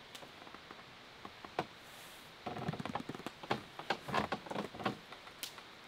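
Wood campfire crackling and popping: scattered pops at first, then a denser run of irregular crackles for a couple of seconds from about halfway through.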